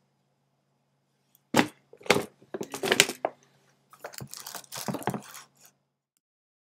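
Crackly rustling and crinkling of a Starbucks tote bag being picked up and handled, in a run of sharp bursts starting about a second and a half in and stopping shortly before the end. A faint steady hum lies underneath and cuts off near the end.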